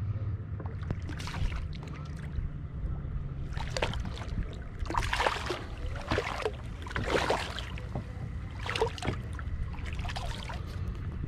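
A hooked fish splashing and thrashing at the surface beside a kayak: a string of short, uneven splashes, the loudest about five and seven seconds in, over a low rumble of wind on the microphone.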